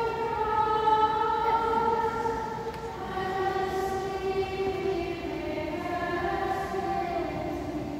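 Small unaccompanied choir singing plainchant in unison, long held notes moving slowly in pitch, echoing in a large church. Near the end it settles on a lower note that fades.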